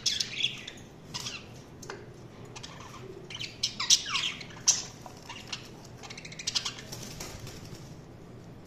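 Budgerigars chirping and warbling in short, scattered calls, louder near the start and again around the middle, quieter toward the end.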